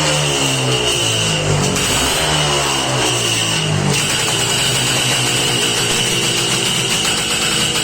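Engine of a freshly restored machine running steadily, with its pitch shifting in the first few seconds, then settling into an even run.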